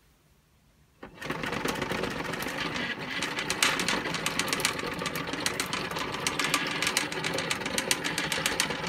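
Electric drive motor of a 3D-printed R2-D2 foot starts about a second in and runs steadily, turning the wheel through a toothed belt, with dense fast clicking from the belt and plastic parts.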